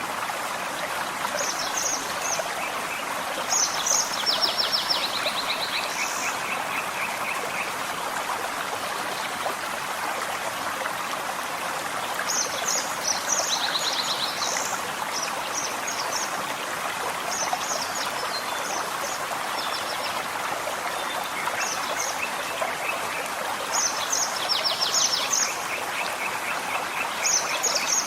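Forest stream running steadily, with a songbird singing in several bouts over it: short high notes and rapid trills, each bout a few seconds long.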